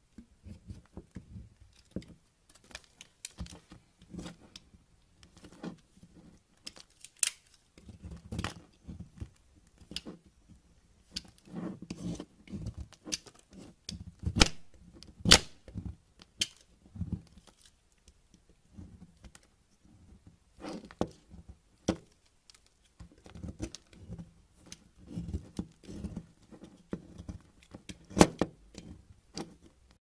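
Utility knife blade shaving and cutting into a bar of soap: irregular crisp scrapes and crunches as curls break off, the loudest strokes about halfway through and near the end.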